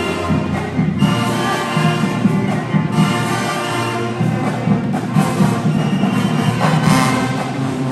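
High school marching band playing live: brass sustaining loud chords over heavy low brass, with a few drum hits in the second half.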